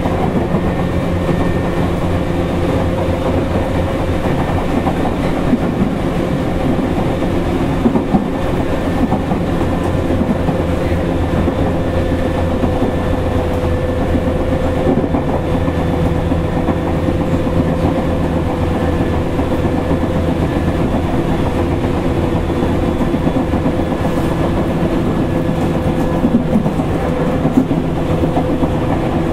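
Running sound heard inside a motor car of a Tokyu 8500 series electric train travelling steadily: a continuous traction-motor hum and wheel-on-rail rumble, with a few sharper rail clicks.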